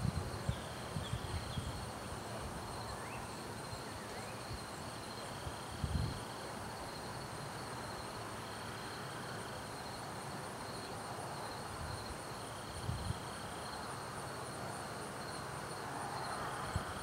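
Insects trilling steadily at two high pitches, with a fainter chirp coming and going. A couple of brief low thumps, about six and thirteen seconds in.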